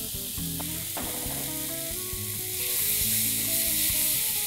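Chopped onion, tomato and bell pepper sizzling in a paella pan while being stirred with a wooden spoon, with a few light knocks of the spoon early on. The sizzle grows louder about halfway through. The vegetable base is cooking off its water and starting to caramelize.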